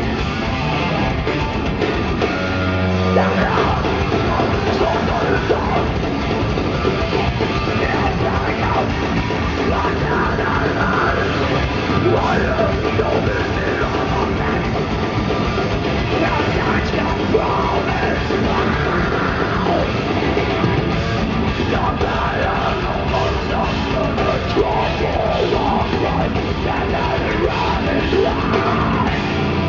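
Heavy metal band playing live and loud through a concert PA: distorted electric guitars, bass and drums in a dense, continuous wall of sound.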